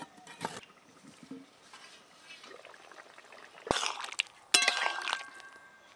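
A metal ladle stirring and knocking in an aluminium pot of boiled potatoes and pointed gourd in thin liquid. A sharp knock comes a little past halfway, then a clink that rings for about a second. Before that there are only faint light clicks.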